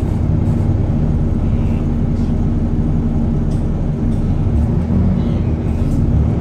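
Volvo D7C six-cylinder diesel of a Volvo B7TL double-decker bus running steadily as the bus moves off slowly, heard from inside the lower deck as a loud, even low hum.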